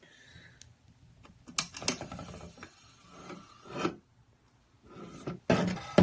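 Pop-up desk power socket pressed down and its tower sliding in its round housing: a scraping rub with a few clicks, lasting about two seconds from about one and a half seconds in, and more handling noise near the end.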